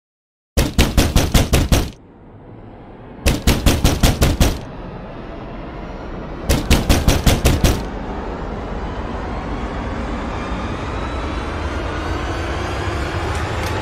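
Rapid knocking on a door in three bursts, each of about nine fast knocks in just over a second, with a pause of a second or two between bursts. A low droning hum rises underneath and keeps getting louder.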